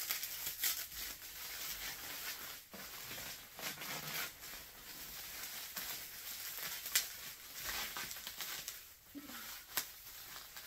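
Clear plastic packing wrap crinkling and tearing as it is pulled off by hand, with irregular crackles and a few sharp snaps, the loudest about seven seconds in.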